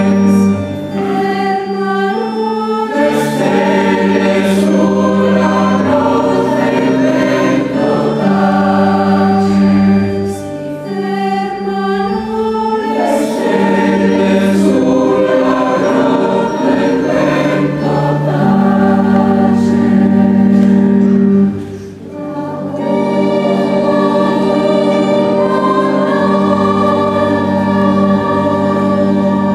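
Mixed choir of men and women singing together in sustained parts, with a short break about three quarters of the way through before the next phrase.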